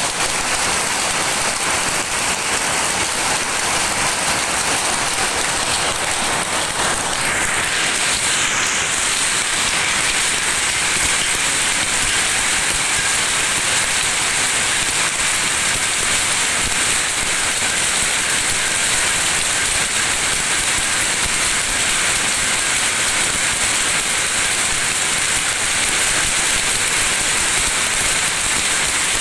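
Many shuttle power looms running together in a weaving shed: a loud, steady, dense clatter in which no single beat stands out.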